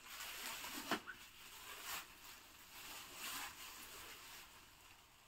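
Thin plastic carrier bag rustling and crinkling as it is pulled open and an item is drawn out of it, with a couple of sharper crackles about one and two seconds in.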